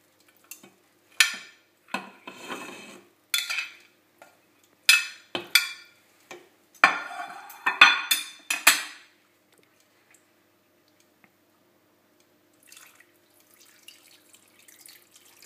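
Metal tongs clinking and clattering against a stainless steel pan and a ceramic plate as pieces of browned lamb are dropped into the sauce, a run of sharp clatters over the first nine seconds. Near the end, water is poured from a glass into the pan with a faint splashing hiss.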